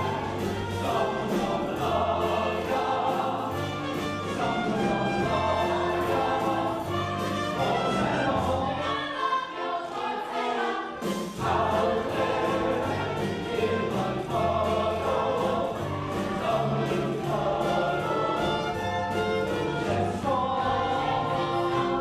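Live pit orchestra playing an up-tempo show tune with a steady beat while a chorus sings. The bass drops out for a couple of seconds about nine seconds in, then the full band comes back.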